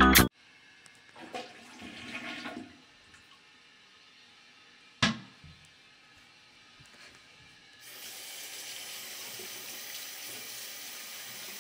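Bathroom sink tap turned on, with water running steadily into the basin from about two-thirds of the way through. Before it come a soft rustle and a single sharp knock.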